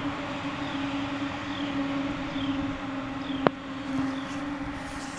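A steady low hum with a faint short chirp repeating about every three-quarters of a second, and a single sharp click about three and a half seconds in.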